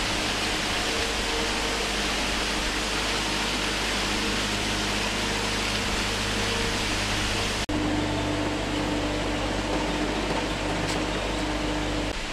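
Steady rushing of a small waterfall falling down a rock face into a pond. The sound breaks off for an instant about two-thirds of the way through, then goes on, and drops a little in level near the end.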